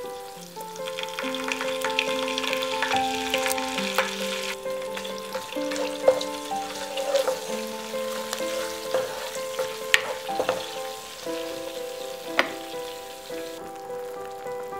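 Garlic cloves and anchovy fillets sizzling in hot oil in a frying pan, with sharp spits and pops now and then. The sizzle stops shortly before the end. Soft piano music plays throughout.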